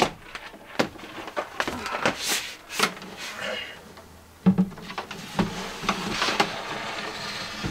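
A wooden cabinet knocking, thumping and scraping as it is manhandled up the steps and through the door of a school bus, with a loud bump about four and a half seconds in.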